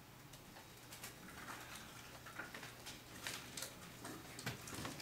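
Quiet room with scattered light clicks and taps of laptop keys and a trackpad being used, more of them in the second half.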